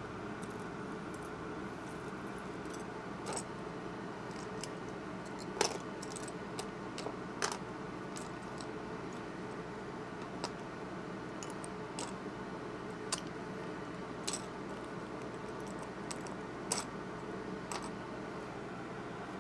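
Loose plastic Lego bricks clicking and clattering as a hand sifts through a pile of pieces, in scattered clicks over a steady background hum.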